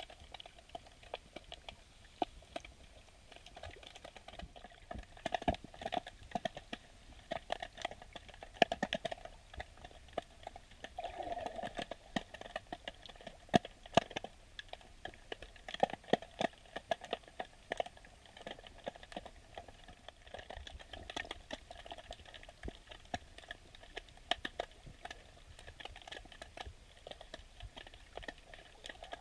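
Underwater sound picked up through a GoPro's sealed waterproof housing: dense, irregular clicking and crackling over a muffled background.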